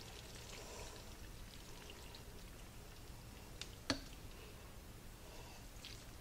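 Large spoon stirring and lifting creamy chicken and egg noodles in a slow cooker crock: faint wet, sticky squishing, with one sharp clink of the spoon against the crock a little before halfway.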